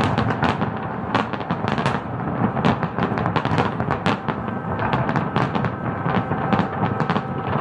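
Aerial fireworks display: many shells bursting in quick succession, several sharp bangs a second overlapping into a continuous rumble with crackling in between.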